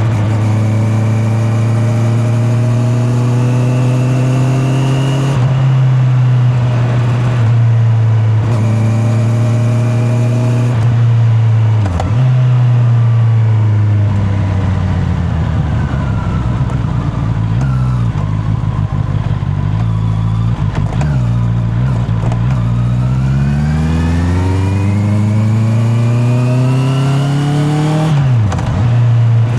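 Honda CB650R's inline-four engine under way. It pulls up through the revs with a couple of gear changes in the first ten seconds, then comes off the throttle and slows for about ten seconds, then accelerates again with another shift near the end. The sound is picked up by a microphone in the rider's back pocket.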